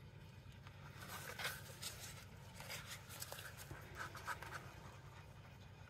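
A plastic stir stick scraping the last resin out of a small mixing cup: soft, irregular scratching strokes, over a steady low hum.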